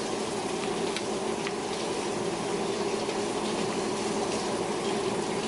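Seafood boil of shrimp and crab legs boiling in a pan on a gas burner: a steady bubbling hiss under a low steady hum. A couple of faint spoon clicks come about a second in.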